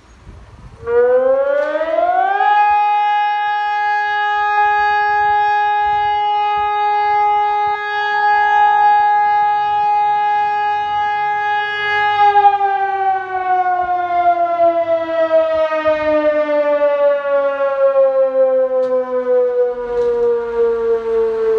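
Sonnenburg electronic siren sounding a test alarm: it starts about a second in, rises in pitch for about a second and a half, holds one steady tone rich in overtones for about ten seconds, then slowly falls in pitch like a siren running down, still sounding at the end.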